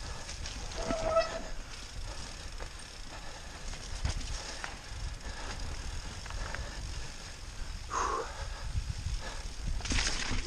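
Mountain bike riding fast down a wet, muddy forest singletrack: tyre noise and chain and frame rattle, with a few sharper knocks over bumps and a low wind rumble on the camera's microphone.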